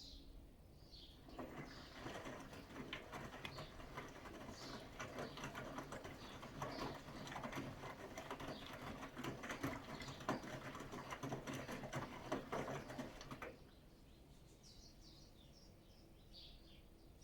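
Bosch Serie 6 WAT286V0 washing machine in the wash phase of a 90 °C program: the drum turns for about twelve seconds, wet laundry tumbling and splashing with many small knocks, then stops. Birds chirp faintly just before it starts and after it stops.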